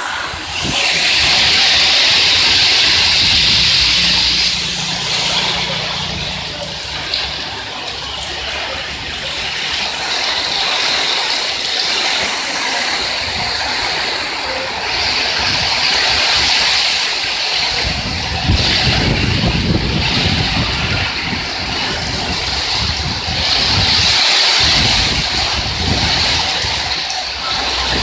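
Heavy rain pouring down in a steady hiss that swells and eases. From about two-thirds of the way through, gusts of strong wind rumble on the microphone.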